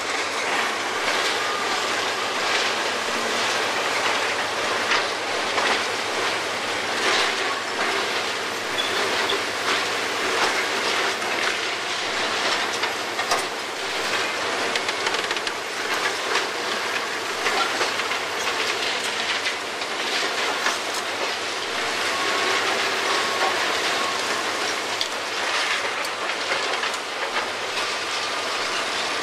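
NPK U31JR hydraulic concrete pulverizer on an excavator crushing reinforced concrete and separating it from the rebar: continuous crunching and clattering of breaking concrete, rubble and steel, with frequent sharp cracks.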